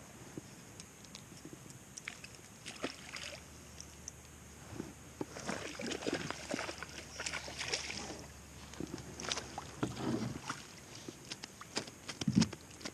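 Water splashing and sloshing, with scattered clicks and knocks, as a hooked rainbow trout is played and brought alongside a small fishing boat. The splashing is busiest in the middle.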